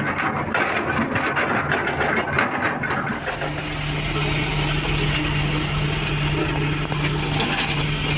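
Crunching and clattering of material being scooped and dumped, then, after an abrupt change about three seconds in, the steady drone of a heavy diesel engine of earthmoving machinery running at constant speed.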